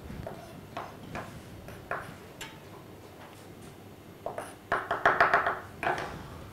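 Kitchen knife striking a cutting board as ingredients are cut: a few separate strokes, then a quick run of chopping strokes about four and a half seconds in.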